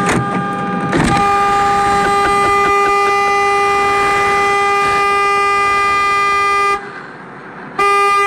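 Car horn held down in one long steady blast of about six seconds, breaking off for about a second, then sounding again near the end.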